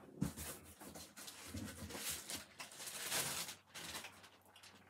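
Rustling and rubbing handling noise, with a few small clicks, as hard plastic CGC comic slabs are picked up and moved about.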